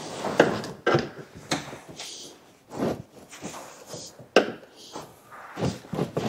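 Hand-tool work on a conveyor belt's metal alligator lacing and its cable: irregular sharp clicks and knocks of metal on metal, with short scraping between them.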